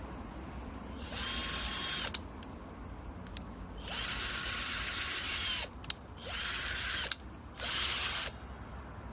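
SHAWTY 20V cordless drill motor run without load in four short bursts, the longest nearly two seconds, each one winding up to a steady whine and spinning down when the trigger is released. A couple of sharp clicks come between the runs.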